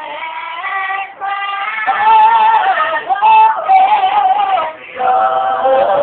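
Gospel vocal group singing, with long held notes that bend and waver in pitch. There is a short break in the singing a little before the end.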